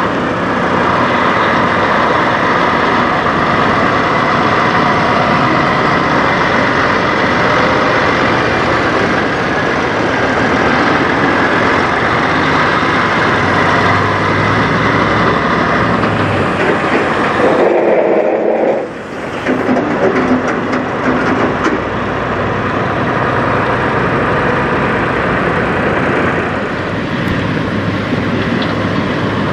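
Diesel engine of a semi tractor hauling a car-carrier trailer, running loud and steady as the rig pulls out and drives away, with a short break in the sound about two-thirds of the way through.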